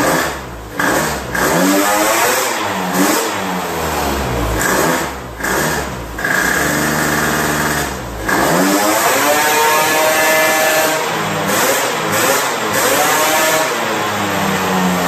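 Lambretta GP scooter's single-cylinder two-stroke engine being revved on a rolling-road dyno. The pitch climbs and drops back several times as the throttle is opened and closed.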